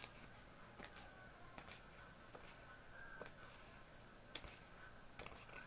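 Faint rustling and a few soft ticks of paper sticker slaps being handled and spread out while they are counted.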